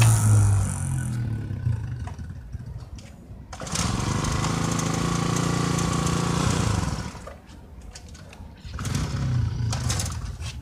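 Dirt bike engine running as the bike rides away and fades, then a few seconds of steady louder running, a dip, and the engine coming back louder again near the end.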